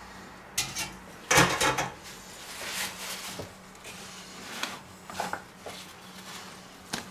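Metal clatter of a stainless steel dough scraper knocking against a metal baking pan on a wooden cutting board, loudest about a second and a half in, followed by a few lighter knocks and scrapes as the scraper is pushed under the bake.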